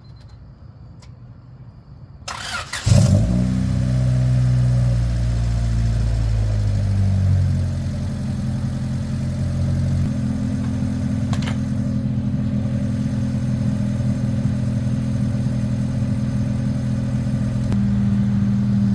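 Honda Civic (EK) four-cylinder engine cranked and catching about two seconds in. It runs fast for a few seconds, then settles to a steady idle through a full header-back exhaust whose leaks have just been regasketed and welded.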